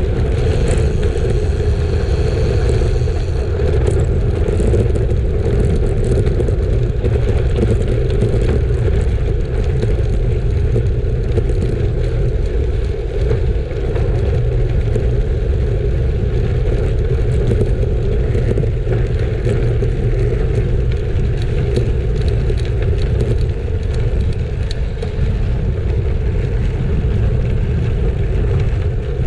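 Wind rumbling on the microphone over the steady noise of bicycle tyres rolling on gravel, with scattered small clicks of grit and gravel under the wheels.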